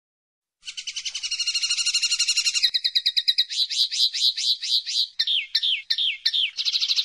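Common linnet singing: a rapid twittering trill, then a run of clear repeated notes and downward-slurred whistles, ending in another fast trill. The song begins about half a second in.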